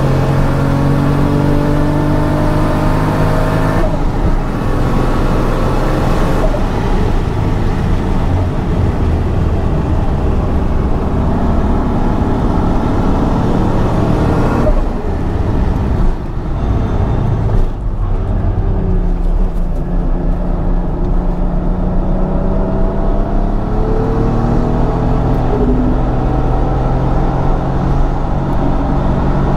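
Toyota Supra JZA80's straight-six engine heard inside the cabin under hard acceleration on track, the revs climbing through the gears. It lets off and slows about halfway through, with a couple of brief dips, then pulls up through the revs again, with road and wind noise underneath.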